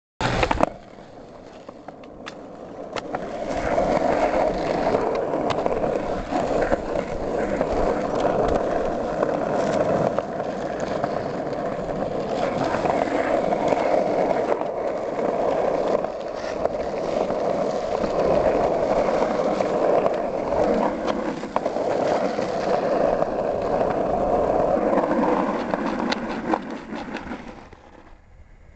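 Skateboard wheels rolling over rough concrete, a steady grinding rumble that builds about three to four seconds in and fades away near the end, with a few sharp clicks and knocks from the board along the way.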